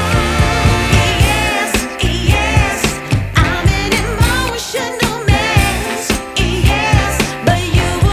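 Background song with a singer's wavering, vibrato voice over a steady beat.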